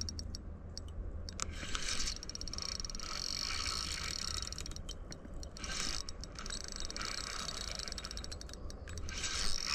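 Spinning reel being cranked in spells while playing a hooked carp: a fast, even ticking and whirring from its gears, stopping and starting every second or two.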